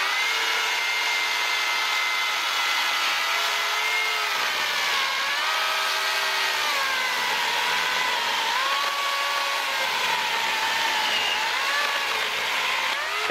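Chainsaw cutting through a thick black locust log: a steady motor whine that dips in pitch several times as the chain is loaded in the cut, over the rasp of the chain in the wood.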